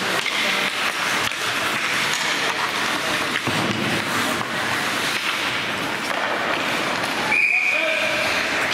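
Crowd and game noise in a gymnasium during a basketball game, with a short high whistle blast about seven and a half seconds in.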